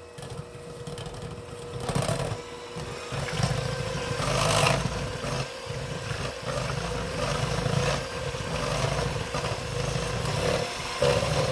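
Electric hand mixer running, its beaters whipping cold whipping cream in a metal bowl toward stiff peaks. A steady motor hum that grows louder over the first two seconds.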